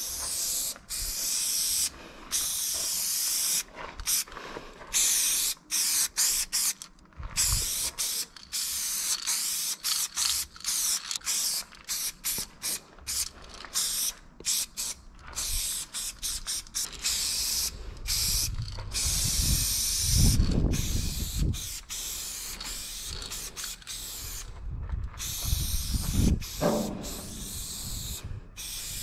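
Aerosol spray paint can hissing in short puffs and longer sprays, stopping and starting many times. Bursts of low rumble come in about two-thirds of the way through and again near the end.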